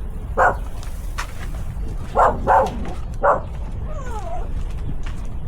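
A mother dog barking, four short loud barks, the middle two close together, followed by a thin gliding whine about four seconds in. She is raising alarm over her puppy stuck in a step.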